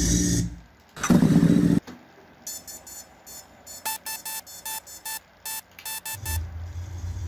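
Car sound-effect previews played back in turn: two short loud bursts of noise, then a quick run of electronic beeps, and near the end a low engine hum sets in.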